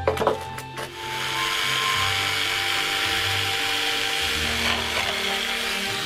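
A few wooden knocks, then from about a second in an electric jigsaw cutting steadily through a wooden slat for about five seconds.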